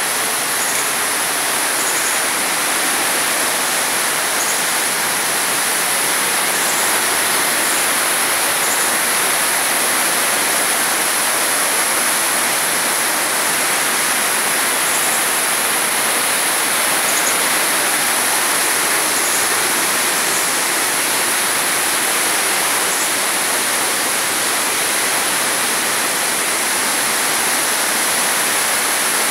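Waterfall pouring into a rocky plunge pool, a steady rush of falling and churning water.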